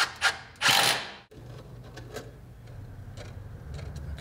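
Power drill-driver driving 1-inch screws to fasten a metal drawer slide, in short loud bursts during the first second or so. After an abrupt cut, a quieter steady low hum with faint ticks follows.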